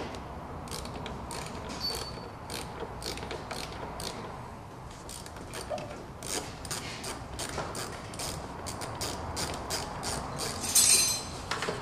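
Ratchet wrench clicking as the 10 mm nuts on a BMW engine's plastic ignition-coil cover are loosened: a run of short clicks that come closer together in the second half, with a louder clatter near the end.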